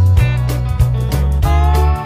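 Background music with a steady bass line and a melody.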